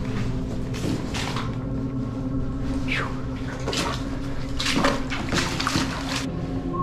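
Boots wading and splashing through shallow water in a brick culvert, in irregular steps that echo off the tunnel walls.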